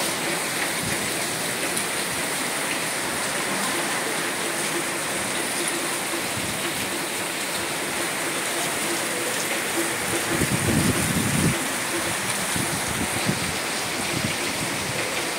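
Heavy cyclone rain pouring down steadily, with wind; a stronger gust comes through about ten seconds in.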